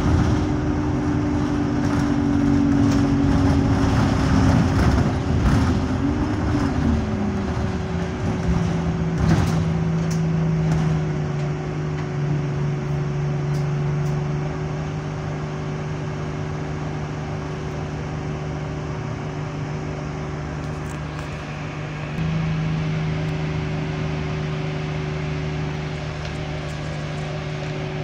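Inside a single-deck Alexander Dennis Enviro200 bus with an Allison automatic gearbox in limp mode: the diesel engine note drops steeply about a quarter of the way in as the bus slows, then runs as a steady low drone, lifting again near the end. A steady higher whine runs underneath, and there are body rattles and knocks over the first third.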